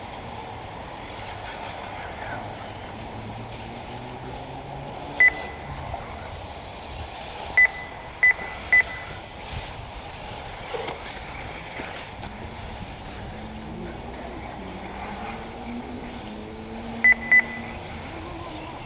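Short, sharp electronic beeps from a lap-timing system at an RC track: one, then three in quick succession, then a pair near the end. Beneath them is a steady noisy background with faint rising and falling whines from electric 1/8-scale RC buggies.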